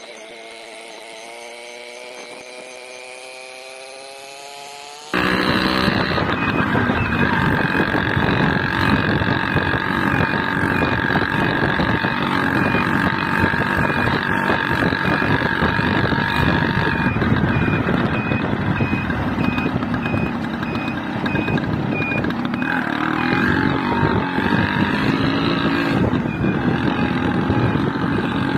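A moving motor vehicle, heard from on board. For the first five seconds the engine rises steadily in pitch as it speeds up. About five seconds in, it jumps suddenly to a much louder rush of engine and wind noise with a steady whine, which carries on to the end.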